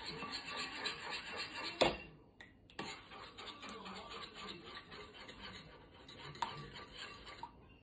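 Spoon stirring a honey and soy sauce mixture in a bowl, scraping against the sides. There is a sharp clink about two seconds in and a brief pause, then the stirring resumes, with another light clink near the end.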